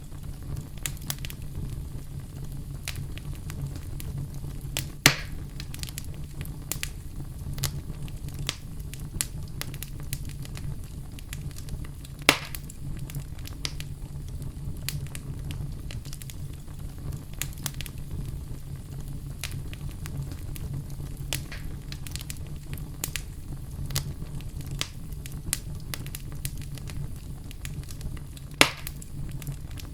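Wood fire in a fireplace crackling over a low steady rumble, with many small pops and three louder snaps: about 5 seconds in, about 12 seconds in, and near the end.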